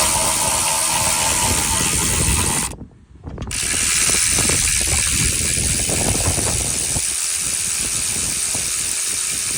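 Cordless electric ratchet running, spinning out the torque strut's 14 mm bolts, in two long steady runs with a brief stop about three seconds in.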